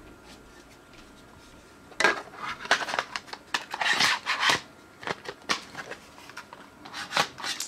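Hard plastic slide cover of a TI-Nspire CX CAS graphing calculator being slid along and fitted onto the calculator body: a run of short plastic scrapes and clicks starting about two seconds in, and a few more near the end.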